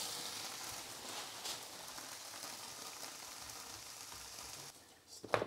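Thin blini batter frying in a non-stick pan, a steady sizzle that slowly weakens as the pan cools, then stops near the end. A couple of light knocks follow just before the end.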